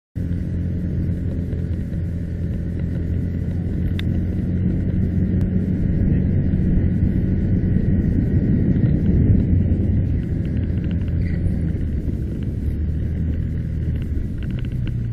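A vehicle's engine running as it drives, a steady low hum with road and wind noise.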